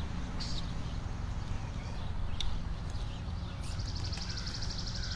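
Outdoor ambience: a steady low rumble with a few faint clicks, and a small bird's fast, high-pitched trill starting about three and a half seconds in and lasting over a second.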